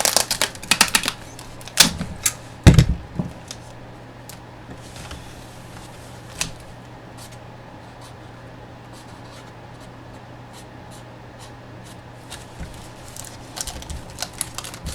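Hands handling boxes and packaged photos: scattered clicks and taps, with a heavier knock a little under 3 seconds in, then sparse faint ticks that grow busier again near the end. A steady low hum runs underneath.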